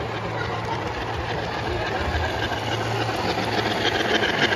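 Model steam locomotive and its passenger cars rolling past close by on a layout: a steady low hum, then a rattle of wheels clicking over the track that grows louder near the end as the cars pass.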